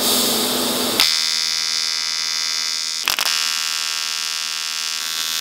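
TIG welding arc buzzing steadily while tacking aluminium angle. The buzz is briefly interrupted and restruck about a second in and about three seconds in.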